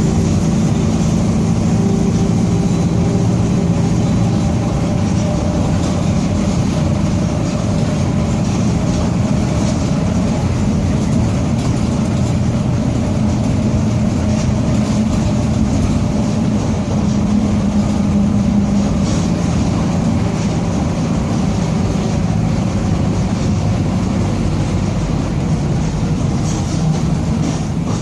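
Mercedes-Benz OF-1722M city bus driving, its differential growling: a steady drone from the engine and drivetrain whose pitch shifts a little with road speed.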